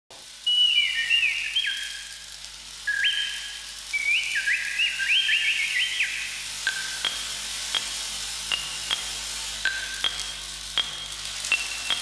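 Rainforest sounds imitated on bamboo instruments: whistled bird calls sliding and stepping between high pitches, giving way about halfway through to short, sharp chirps every half second to second. Under them runs a steady rain-like hiss from a large, flat bamboo tray.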